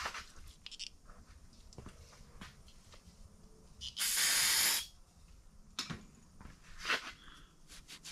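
A short hiss like a spray can or compressed-air nozzle, just under a second long, about four seconds in, among a few faint knocks. Near the end a rag starts rubbing quickly on the crankshaft journal.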